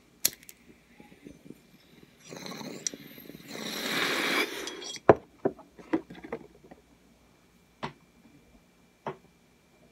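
Glass clinking and tapping as it is handled: several light, separate clinks over a few seconds, after a rushing noise that swells for about three seconds.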